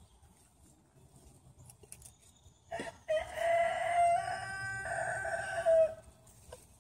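A rooster crowing once, a single long call of about three seconds starting about three seconds in.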